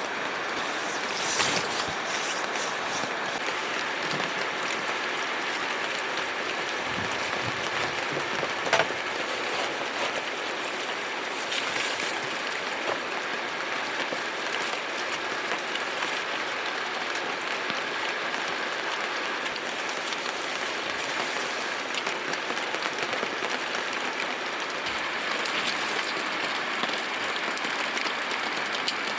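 Steady rain falling, an even hiss with a few sharp taps; the loudest tap comes about nine seconds in.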